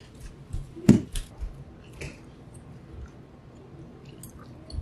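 Knife and fork clinking and scraping on a dinner plate while cutting steak, with chewing between; a sharp clink about a second in is the loudest sound, followed by a second one just after.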